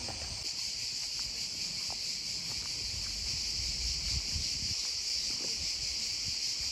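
A chorus of cicadas singing: a steady, high-pitched buzz that does not let up.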